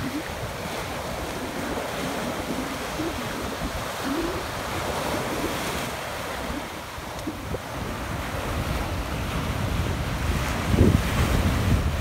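Small surf waves breaking and washing up the beach, with wind buffeting the microphone. The loudest wash comes near the end.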